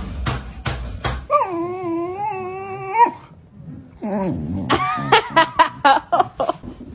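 A dog howls in one long, wavering note, then gives a run of short whines and yips that bend up and down in pitch. Before the howl there are a few sharp knocks, about three a second.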